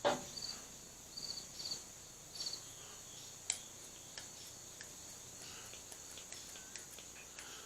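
Cheap stainless dollar-store kitchen shears clicking shut a few times on a sock, faint sharp snips, the blades too dull to cut through: they cut a little but hardly at all. Crickets chirp faintly underneath.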